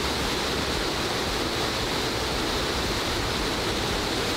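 Steady rush of a small waterfall pouring into a rocky creek pool, an even roar of falling water.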